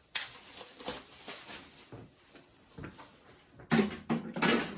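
Packaging being handled while unboxing an oven: a click, soft rustling, then a louder burst of rustling and knocks near the end.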